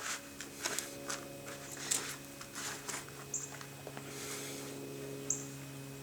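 Hands digging through wet potting soil in a pot, feeling for potatoes: irregular soft scraping and crumbling strokes over a steady low hum.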